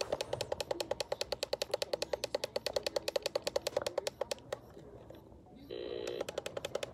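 Rapid electronic beeping, about ten short beeps a second for some four seconds, then a few slower beeps and a harsh buzzer tone lasting about a second near the end.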